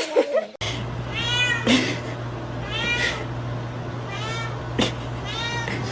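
Domestic cat meowing four times, about a second and a half apart, each meow rising then falling in pitch, over a steady low hum. It opens with the tail of a falling cat call that cuts off abruptly, and two sharp clicks come in the middle.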